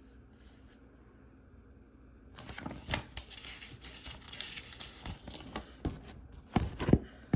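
Paper rustling and crackling as glossy magazine pages are handled and turned, with sharp taps and clicks throughout. It starts a little over two seconds in after faint room tone, and the loudest taps come near the end.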